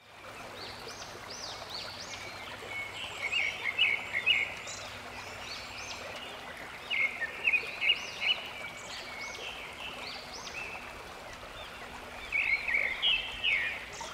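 Birds chirping in three spells of quick, high calls over the steady rush of a waterfall.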